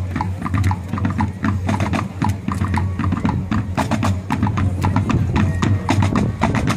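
Marching drum line playing a fast, busy pattern of sharp drum and stick strikes.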